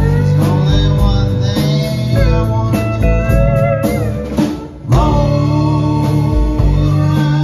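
Live country-blues band playing steel guitar, acoustic guitar, electric bass and drums, with sliding steel-guitar lines. The band drops out briefly about four and a half seconds in, then comes back in together with a hit.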